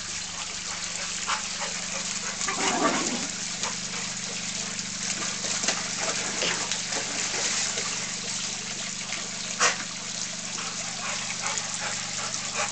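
Steady splashing hiss of water running in a tiered garden fountain, with a few brief sounds over it and one short sharp sound about ten seconds in.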